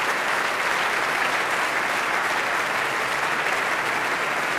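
Large seated audience applauding steadily, a dense even clapping.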